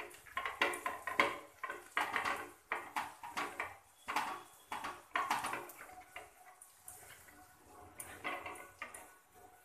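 Raw fish pieces being rubbed and turned by hand on a steel plate to coat them with turmeric and salt, with repeated clinks and taps against the metal plate. The taps come thick for the first five or six seconds, then thin out and grow quieter.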